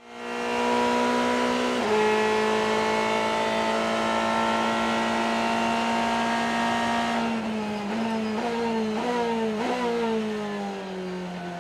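Onboard sound of a Ferrari GT race car's V8 engine under full throttle, fading in. It shifts up once about two seconds in, then holds a steady high note down the straight. From about seven seconds in it brakes with four quick downshifts, each with a throttle blip, and the engine note falls as the car slows for the corner.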